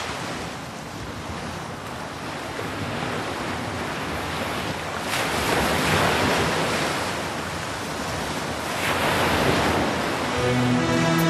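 Steady hiss of water spraying, as when an air conditioner's evaporator coil is rinsed, growing louder about halfway through and again near the end. Music comes in just before the end.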